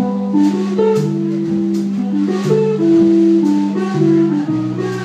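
Small trad jazz band playing live without vocals: upright bass, guitar and drum kit under held melody notes.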